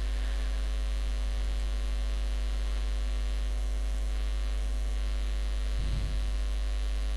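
Steady electrical mains hum picked up by the recording: a strong low hum with a ladder of steady overtones above it.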